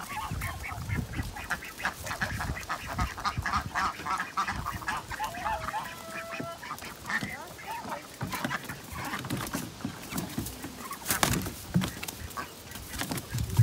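Domestic waterfowl calling on and off, with the crunch and rustle of footsteps on dirt and straw.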